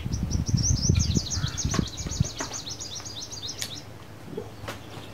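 A bird sings a rapid trill of short, high, falling chirps that stops a little under four seconds in. Under it, in the first two seconds, are low knocks and rustles of a camera and lens being handled close to the microphone, with a few sharp clicks after.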